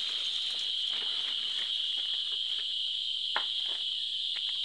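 A steady, unbroken high-pitched insect drone, with a faint tick a little past three seconds in.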